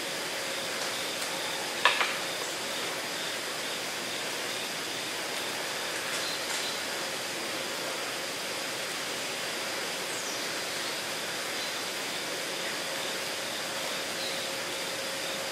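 Steady rushing of river water, with a sharp click about two seconds in and a few faint bird chirps.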